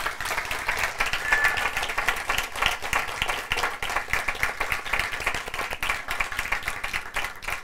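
Audience applauding: many hands clapping in a dense, steady patter that dies away near the end.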